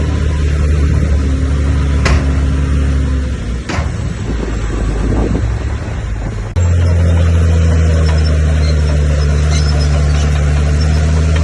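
Bulldozer's diesel engine running with a steady low drone. Two short sharp knocks come about two and four seconds in, and the engine note wavers before cutting abruptly to a louder, steady drone about halfway through.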